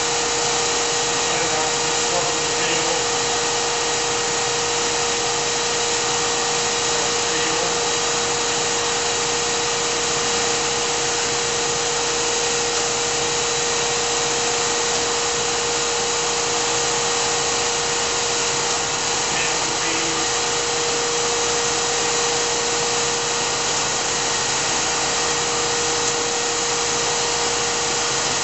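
GMP SG-1000/400 hydraulic surface grinder running with its spindle motor and hydraulic pump on and the table traversing: a steady whir with one constant hum-like tone.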